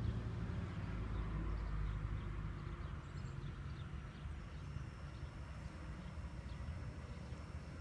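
G-scale model diesel train (USA Trains NYC PA-1/PB-1 set) running on analog power along garden-railway track: a steady low rumble with faint scattered clicks, and a faint thin high whine coming in about halfway through.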